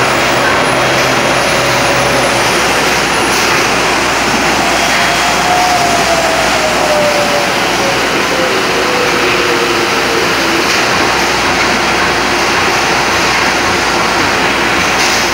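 Steady, loud machinery din of a factory palletizing cell, where a robot arm stacks boxes beside a roller conveyor. A faint whine falls slowly in pitch about five to ten seconds in.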